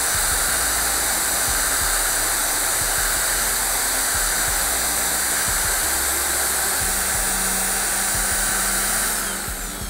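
Cordless drill running at a steady high speed, spinning a cardboard toilet-roll tube that strips braided fishing line off a carp reel's spool. About nine seconds in, the motor's whine falls in pitch as the drill slows down.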